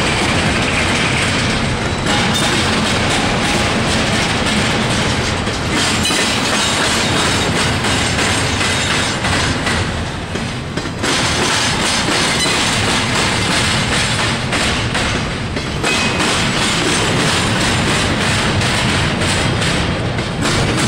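Intermodal freight train rolling past, its wheels clicking steadily over rail joints, with two brief lulls along the way.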